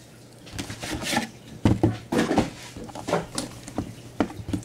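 A trading-card box being handled and opened: a string of irregular light taps and knocks on the box and desk, with brief rustling.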